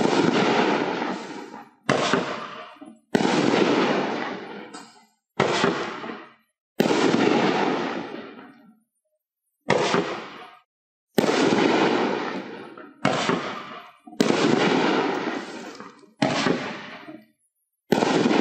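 A 12-shot consumer firework cake (Hot Fireworks' Chef's Kiss) firing aerial shells one after another. About ten sharp reports come one to three seconds apart, each followed by a tail of noise that fades over a second or two as the shell breaks in the air.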